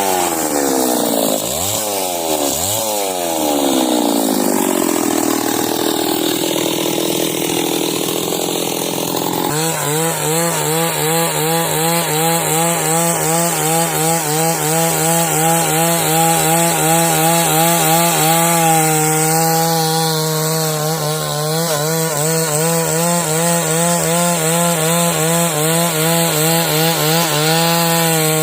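Chainsaw ripping timber lengthwise into beams. For about the first third the engine pitch rises and falls repeatedly; then it settles into a steady high-revving cut under load, its pitch wavering rhythmically.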